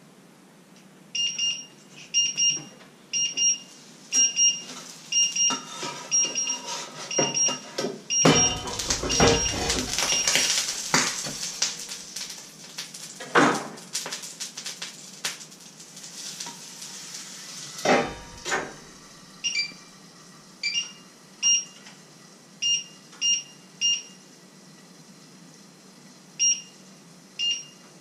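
Short, high-pitched electronic beeps, about one a second, then fewer and at uneven spacing after a pause. In the middle, pots and dishes clatter and knock, with a loud rumbling clatter a third of the way through.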